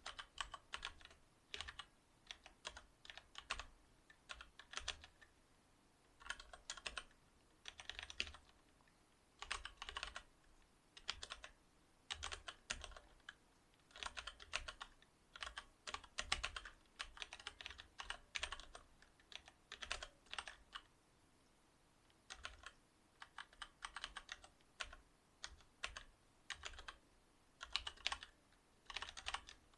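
Typing on a Cherry MX Board 8.0 mechanical keyboard with Cherry MX Silver linear switches: quick runs of keystrokes broken by short pauses.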